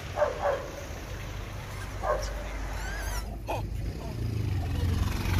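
Several short, pitch-bending squeals and yips from rhesus macaques squabbling over chickpeas, with a low traffic hum building near the end.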